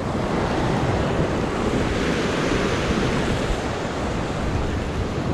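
Ocean surf washing and breaking over the rocks below, a steady rushing wash, with wind buffeting the microphone.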